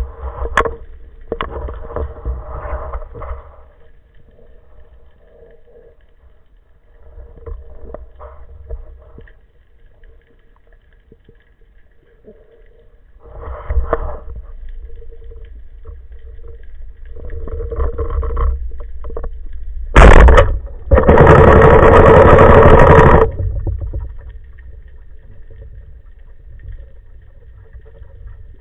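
Underwater scene with a rubber-band speargun: muffled swishes of water and movement, then about 20 seconds in a single sharp crack as the gun fires, followed by about two seconds of loud rushing noise.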